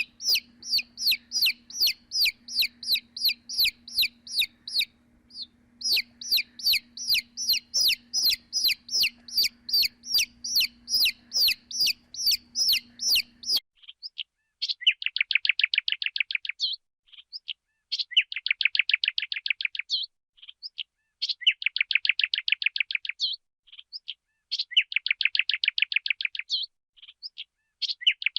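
Sparrow chirping: a steady run of sharp, high chirps about three a second, over a faint low hum. About halfway through it cuts to a different recording of rapid trilled bursts, each about two seconds long, repeating every few seconds.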